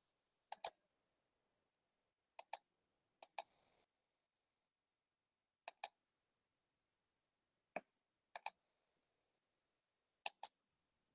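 Computer mouse clicking: about seven sharp clicks, most in quick pairs, a second or two apart, over near silence.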